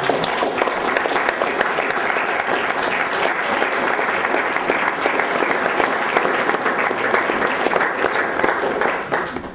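Audience applauding: a steady clatter of many hands clapping that dies away near the end.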